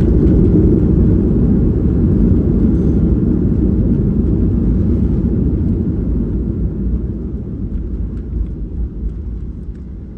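Boeing 737-800 heard from the cabin: a loud, low rumble that fades steadily as the jet slows on its landing rollout.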